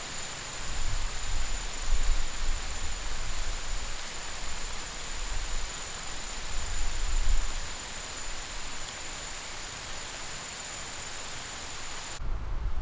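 Steady hiss of a small stake-mounted micro-sprinkler spraying water, with a thin high steady tone over it and some low rumbling. The hiss cuts off abruptly near the end.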